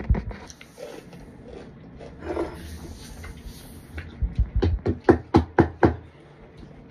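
Close mouth sounds of someone chewing a mouthful of raw cornstarch, soft at first, then a quick run of about eight sharp smacking crunches about four seconds in.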